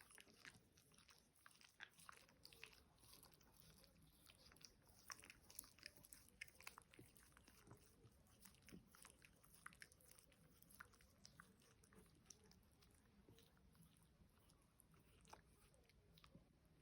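Faint, irregular clicks and crunches of small dogs, a Russian toy terrier and an American hairless terrier, chewing and mouthing.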